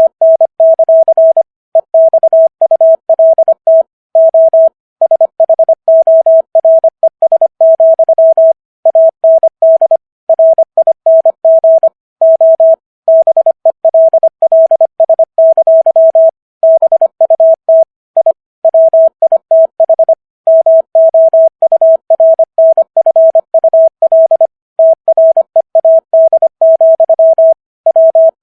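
Morse code at 25 words per minute: a single steady beep tone keyed rapidly on and off in short dots and longer dashes, with brief gaps between letters and slightly longer pauses between words.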